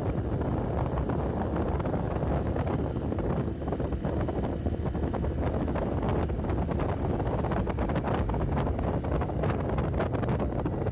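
Wind buffeting the microphone of a moving motorcycle, over the steady running of its engine and tyres on the road.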